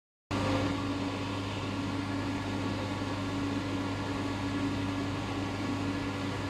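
Steady mechanical hum of aquarium hall machinery: a low drone with a higher steady tone over an even hiss.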